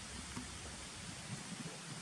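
Steady outdoor background hiss with a faint low rumble and a few small ticks, one about a third of a second in and another a little past a second.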